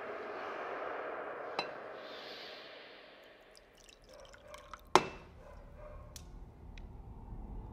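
Amber liquor poured from a bottle into a cut-glass tumbler, the pour trickling and fading out about three and a half seconds in. A single sharp glass clink comes about five seconds in.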